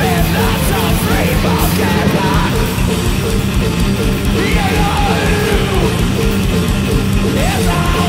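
Loud live heavy rock from a guitar-and-drums duo: heavily distorted electric guitar over pounding drums, with yelled vocals.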